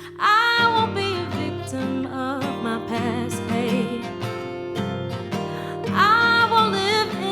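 A woman singing a song over a strummed acoustic guitar, with long wavering held notes just after the start and again about six seconds in.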